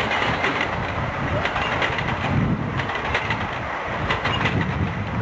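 A 7¼-inch gauge miniature passenger train rolling past, its wheels clicking over the rail joints in small clusters every second or so over a low rumble.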